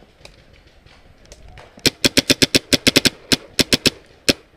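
Paintball marker firing in rapid strings: about eighteen sharp pops in two seconds, starting about two seconds in, with one last single shot after a short pause.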